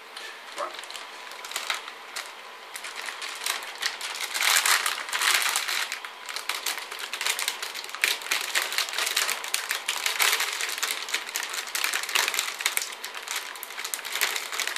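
Metallized anti-static bag around a motherboard crinkling and crackling as it is handled, a dense run of rustles and sharp clicks that grows louder about four seconds in.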